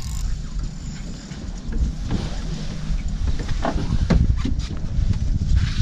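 Low rumble of wind and handling noise on the microphone, with a few soft knocks.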